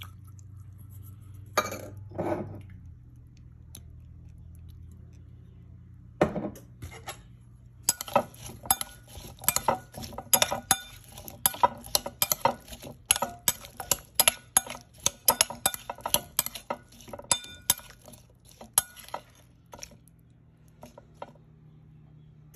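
A metal spoon clinking and scraping against a bowl while tossing cubed cucumber in a soy dressing. A few separate knocks come first, then a rapid run of clinks lasts about ten seconds before it stops, over a steady low hum.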